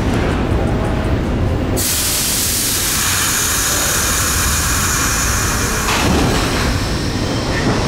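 R62A subway train standing at the platform with its equipment running as a low rumble. About two seconds in, a sudden loud hiss of air starts and lasts about four seconds: the air brakes releasing before departure.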